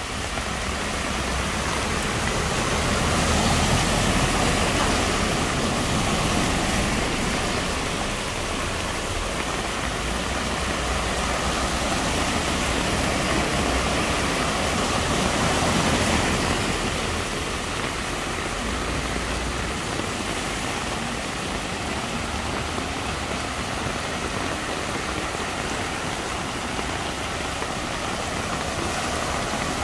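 Heavy rain with cars driving through deep floodwater on the road, their wheels pushing and splashing through the water and their engines running under the rush. The water noise swells a few seconds in and again about halfway through as cars pass.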